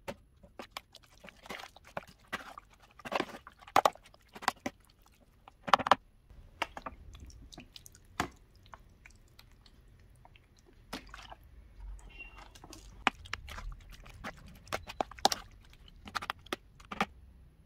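Metal spoon stirring raw chicken pieces and sliced onion through a wet marinade in a plastic tub: squishing with irregular clicks and scrapes of the spoon against the container.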